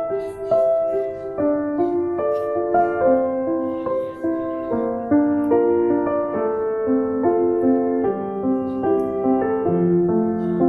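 Background music: a gentle piano-like keyboard melody of held notes.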